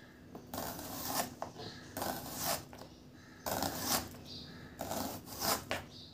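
A knife slicing through a red onion into rings on a plastic cutting board: about four separate cutting strokes, each lasting half a second to a second.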